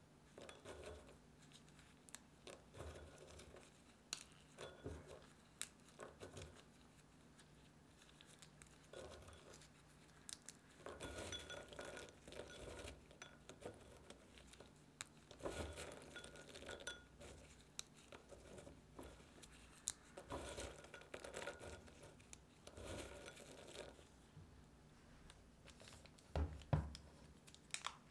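Roasted pecan halves broken and crumbled by a gloved hand in a glass bowl: short, quiet bursts of crackling nut pieces with light clinks against the glass, coming and going. Near the end, a dull thump and crinkling of foil butter wrapping.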